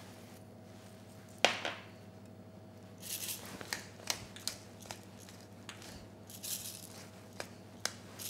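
A pepper mill being twisted over a dish, grinding in a series of short gritty rasps with small clicks from about three seconds in. A single sharp knock sounds about a second and a half in.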